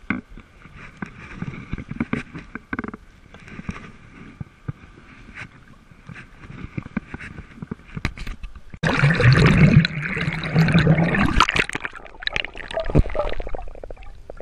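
Sea kayak paddle strokes splashing and water lapping against the hull. About nine seconds in, a much louder churning, gurgling water noise takes over for a few seconds.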